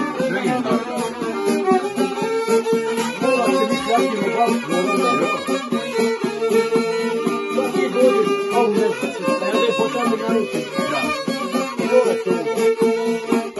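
Violin and šargija, a long-necked fretted lute, playing an instrumental passage of a traditional folk song: a violin melody over plucked lute accompaniment.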